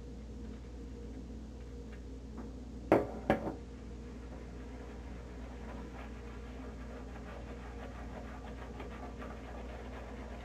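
Two sharp knocks close together about three seconds in, then the soft scratchy swishing of a silvertip shaving brush working shaving cream lather over a stubbled chin and cheeks, over a steady low hum.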